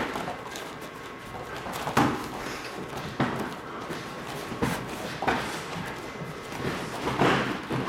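Muay Thai sparring at an easy pace: padded boxing gloves and shin guards thudding as punches, kicks and blocks land, about five sharp hits spaced irregularly over several seconds.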